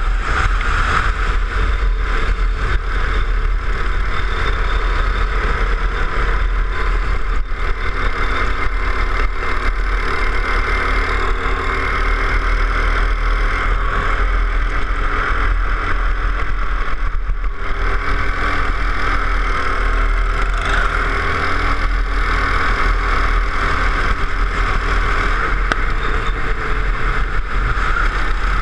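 Go-kart engine running hard at racing speed, heard close up from the kart itself. Its note dips briefly a little past halfway, as if lifting off for a corner, then picks up again.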